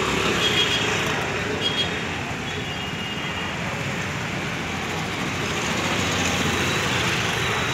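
Busy market-street din: a steady mix of crowd and motorcycle traffic noise, with a few short high-pitched beeps in the first few seconds.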